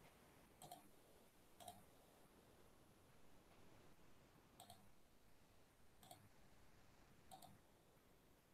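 Near silence broken by five faint, spread-out computer mouse clicks.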